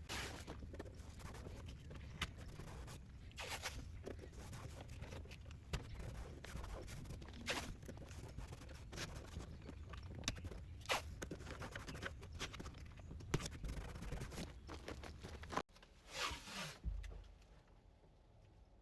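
Tape being pulled off the roll in a series of short rasping rips, about a dozen spread irregularly, with quieter handling noise between them. A steady low hum runs underneath.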